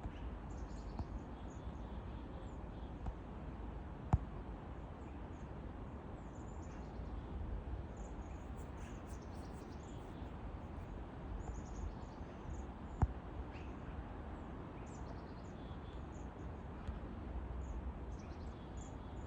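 Small birds chirping, short high calls scattered throughout over a steady low rumble of wind. Two sharp single knocks sound, about 4 seconds in and again about 13 seconds in.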